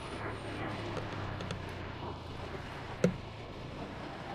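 Steady background noise with a low hum, broken by one sharp click about three seconds in.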